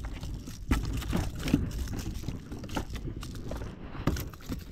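Scattered knocks, clicks and rustling of handling as a small hooked snook is reeled in and brought to the kayak.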